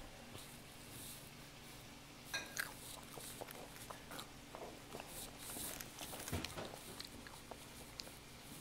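Quiet, crisp crackling and clicking of a Rice Krispie treat being picked apart by hand and chewed, starting about two seconds in.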